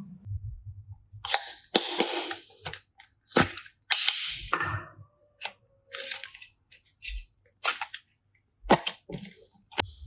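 Irregular sharp clicks, pops and crackly rustles of hands working slime and clay, with short quiet gaps between them.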